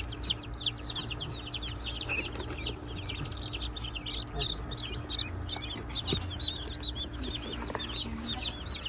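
A brood of baby chicks peeping continuously: many overlapping short, high, falling cheeps. A steady low hum runs underneath.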